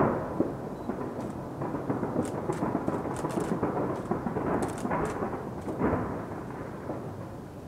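Fireworks launched from the Taipei 101 tower, heard from far off: a continuous rolling rumble of many bursts with faint crackle, easing off a little toward the end.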